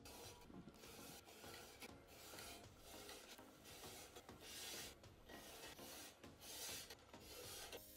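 Marker pen drawn along a spirit level on a steel barrel: a series of faint, scratchy rubbing strokes, about one a second.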